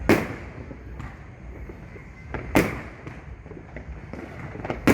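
Fireworks exploding: three loud bangs about two and a half seconds apart, each with a short echoing tail, and a few smaller pops just before the last, over a steady din of more fireworks further off.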